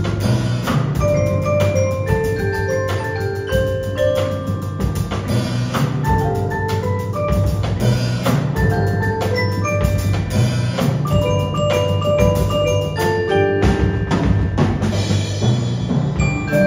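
Percussion ensemble performing: marimbas and vibraphone play quick melodic mallet lines over a drum kit beat and held low bass notes.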